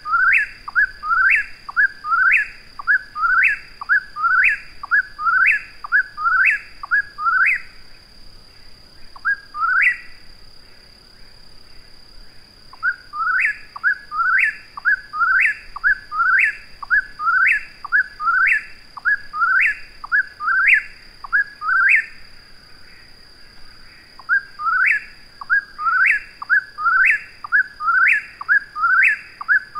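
Whip-poor-will singing, repeating its "whip-poor-will" phrase about once a second in long runs. The song breaks off twice for a few seconds: once about eight seconds in, with a single phrase in the gap, and again about twenty-two seconds in.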